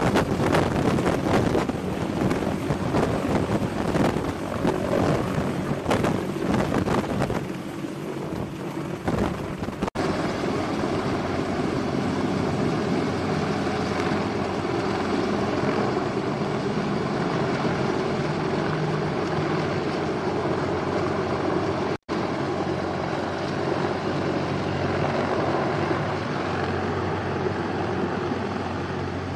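A CH-53 heavy-lift helicopter's rotors and turbine engines. For the first ten seconds it is close overhead, with rotor wash gusting on the microphone. After a cut it is farther off, a steady droning hum.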